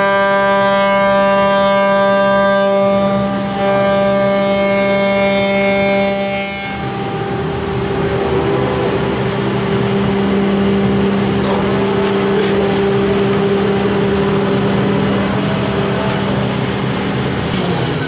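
CNC milling machine spindle cutting a wooden block: a steady high whine with many overtones, dipping briefly about three seconds in and dropping away about seven seconds in, leaving the steadier lower hum of the running machine over a noisy rush.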